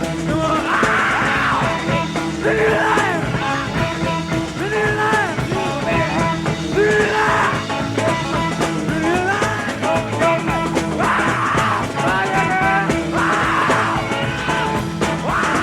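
Rock music playing steadily, loud throughout.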